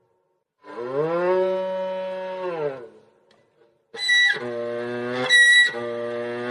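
Erhu (Chinese two-string fiddle) bowed to imitate a cow's moo: one long note that slides up, holds and slides down. About four seconds in, a second imitation begins, alternating sharp high-pitched notes with lower held notes.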